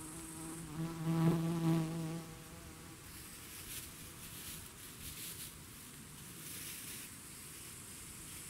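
A flying insect buzzing close by for about two seconds, loudest just over a second in and then fading away. After it, a plastic bag rustles and crinkles for a few seconds.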